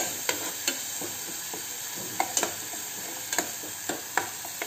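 Masala paste of onion, garlic, ginger and green chilli sizzling in hot oil in a small pan while a steel ladle stirs it, clicking and scraping against the pan at irregular moments over a steady sizzle.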